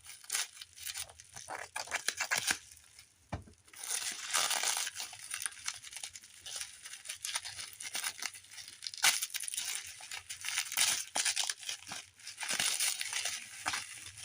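Packaging being torn open and crinkled by hand: irregular ripping and rustling with small clicks, louder in several stretches.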